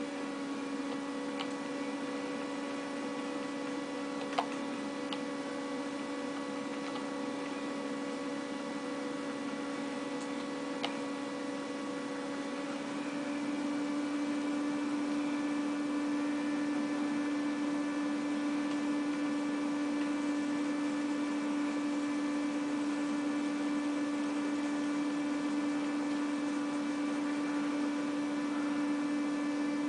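Steady electrical hum at one fixed pitch with fainter overtones, over a low hiss, with a few faint clicks.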